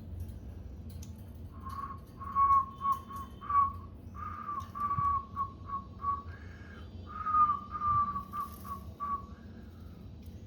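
Cockatiel whistling a short tune: about a dozen clear notes at nearly one pitch, in three phrases with brief pauses between them.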